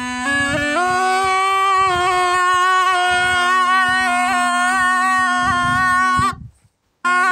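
Snake charmer's been (pungi), a gourd wind pipe, playing a melody of long held notes over a steady drone. It cuts off abruptly about six seconds in and starts again after a brief silence.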